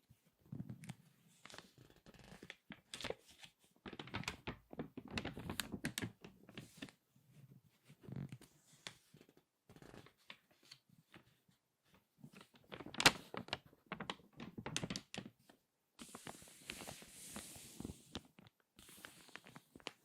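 Crinkly glossy magazine pages being squeezed and turned by hand: irregular bursts of crackling crinkles with short pauses, the sharpest crack about two-thirds of the way through, then a softer papery swish near the end.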